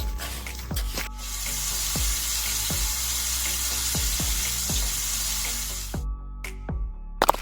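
A steady hiss that starts about a second in and cuts off suddenly about six seconds in, over background music with a steady low beat.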